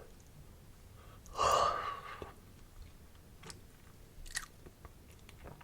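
A close-miked, breathy yawn lasting about a second, a little over a second in, followed by a few soft wet mouth clicks.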